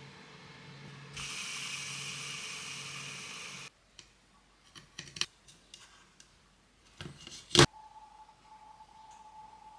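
Small-parts assembly noises on an RC car: a steady whirring for about two and a half seconds that cuts off suddenly, then scattered clicks and one sharp snap near the end, followed by a faint steady tone.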